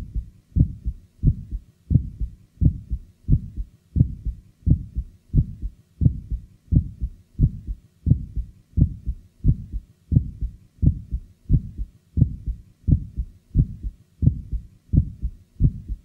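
Heart sounds recorded through a stethoscope from a patient with mild aortic stenosis: a steady beat, about three every two seconds. Each first heart sound is closely followed by a short, clicky aortic ejection sound, made as the narrowed aortic valve opens at the onset of ventricular ejection.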